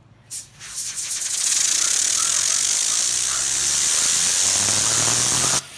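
A can of compressed-air duster sprays through its straw nozzle onto a fidget spinner in a loud, steady hiss, spinning the spinner up. There is a short puff about a third of a second in, then a continuous blast that cuts off suddenly near the end.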